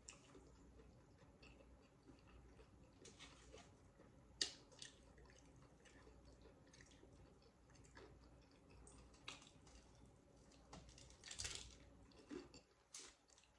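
Quiet eating of loaded nachos: soft chewing and faint clicks of food being scooped and handled, with a sharp click about four seconds in and a short run of crunches about eleven seconds in as a loaded bite goes into the mouth.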